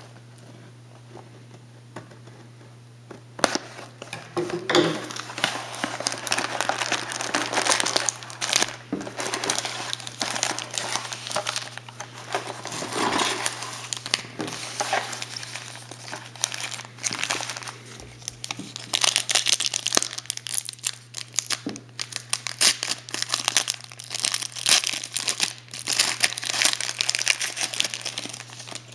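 Wrappers of 2009 Upper Deck Champs hockey card packs crinkling and tearing as they are opened by hand, with the cards handled between them. The crinkling starts about three seconds in and goes on in irregular bursts over a low steady hum.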